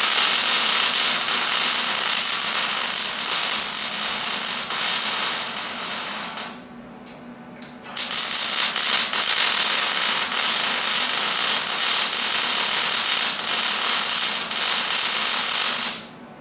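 Electric arc welding on steel angle iron: the arc crackles and hisses in two long runs, with a break of about a second and a half in the middle, and stops near the end.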